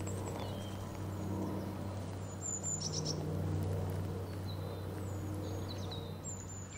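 Small songbirds chirping in short, scattered calls over a low, steady drone of background music whose note shifts a couple of seconds in.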